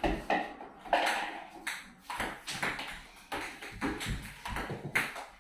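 Table tennis balls being hit back and forth with paddles and bouncing on the table: a quick, uneven run of sharp pings, about three a second.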